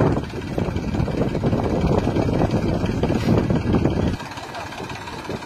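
Engines of a New Holland 4710 tractor and a Toyota Fortuner running loud and rough, hitched together for a tug of war; the noise drops sharply about four seconds in and carries on more quietly.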